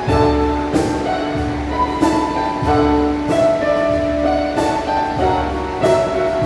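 Background music: held melodic notes over a low bass and a steady beat.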